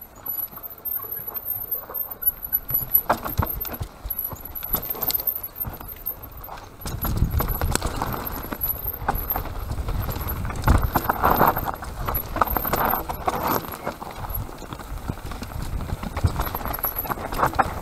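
Mountain bike riding fast over rough forest singletrack: tyres rolling and crunching over dirt, roots and rocks, with the bike rattling and knocking over the bumps. A low rumble grows louder about seven seconds in.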